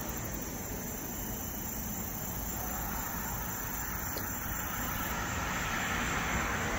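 Street traffic passing, the noise of a car slowly growing louder toward the end, over a steady chorus of crickets on a warm night.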